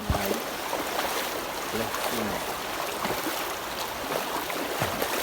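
Rushing river water: a steady hiss with many small splashes and trickles throughout.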